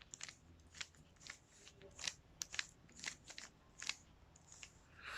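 Rubik's cube being turned by hand: quick, irregular plastic clicks and scrapes of its layers rotating, a few per second.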